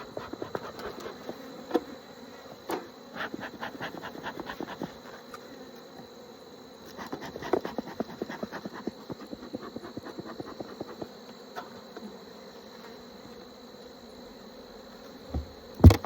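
Honeybees buzzing steadily around an open hive, with two long runs of rapid clicking and scraping and two loud thumps near the end.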